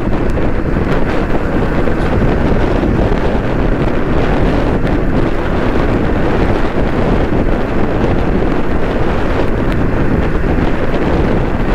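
Steady wind rush buffeting the microphone of a motorcycle riding at speed, with vehicle and road noise underneath.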